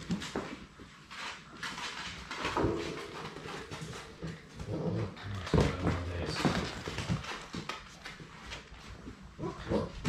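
Six-week-old Labrador Retriever puppies playing, with puppy vocal sounds among irregular scuffles and knocks as they jump and tug at a dangled towel.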